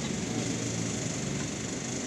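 An engine running steadily in the background, a low even hum with no strikes or changes.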